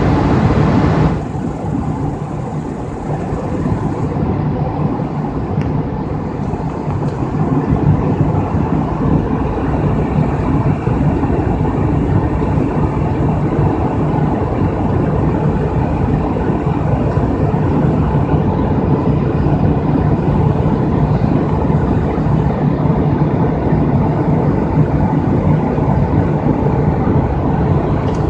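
Steady drone of an airliner in cruise heard from inside the cabin: engine noise and rushing air with a steady low hum.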